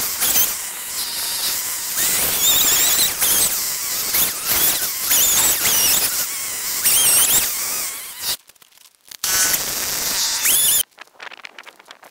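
Chainsaw running and cutting into a fresh pine log, its pitch wavering as the throttle is worked. It drops out briefly about eight seconds in, runs again, then stops shortly before the end, leaving only faint clicks.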